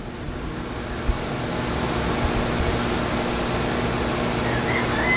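Kitchen range hood exhaust fan running: a steady rush of air with a low motor hum, growing louder over the first couple of seconds and then holding steady.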